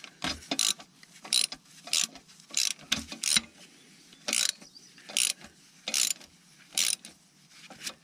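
Socket ratchet clicking in short bursts, one on each return swing, about ten strokes, as it backs off a torque-converter nut.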